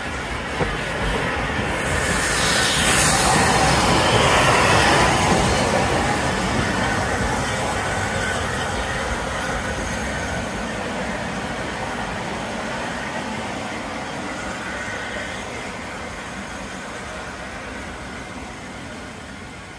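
Steam tank locomotive passing close by, followed by its carriages rolling past. A loud hissing rush peaks a few seconds in as the engine goes by. The steady rumble of the coaches' wheels then slowly fades.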